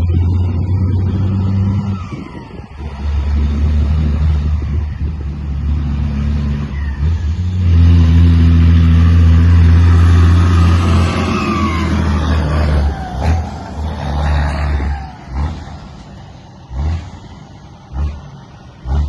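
A heavy truck's engine runs in long steady stretches, loudest around the middle. The engine note then falls away, leaving a few short low bursts and sharp clicks near the end.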